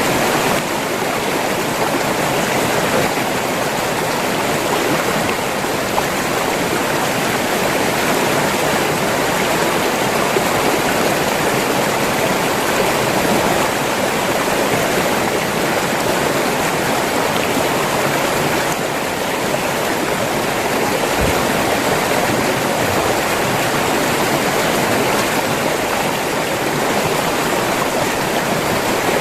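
River water flowing and rushing over rocks in a steady, dense splashing.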